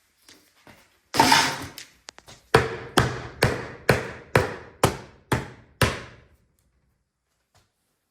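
A short scraping clatter, then a hammer striking eight steady blows at about two a second, in a small room.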